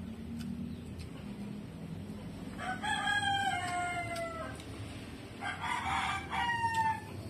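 A rooster crowing twice: a long drawn-out crow about three seconds in, slightly falling in pitch, and a second, rougher crow about six seconds in.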